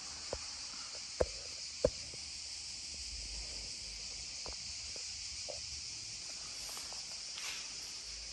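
Footsteps on a tiled floor: two sharp steps about a second in, then a few fainter ones, over a steady high hiss.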